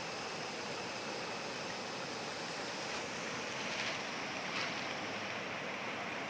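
River water rushing steadily, with a thin high-pitched whine over it that fades out about five seconds in.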